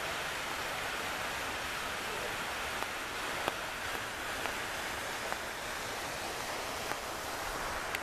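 Steady hiss of falling water, a thin waterfall splashing into a shallow plunge pool under rain, with a few sharp ticks scattered through.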